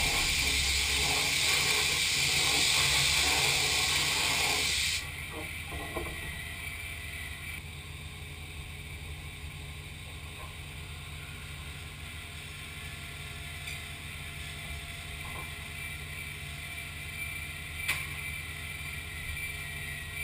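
Spray hissing steadily inside the enclosure of a Mazak 510-II vertical machining centre, cutting off suddenly about five seconds in. After that the machine keeps a low steady hum, with a few faint clicks and a sharper click near the end as the part is handled.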